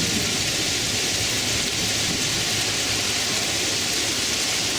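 Steady rain falling, an even hiss with no breaks or distinct strikes.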